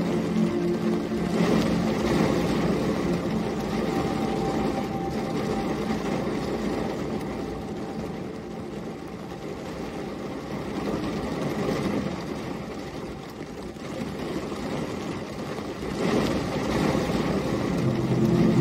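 Rain pattering on a car's windshield, heard from inside the car, over the low, steady rumble of the engine idling. The noise swells and eases by turns.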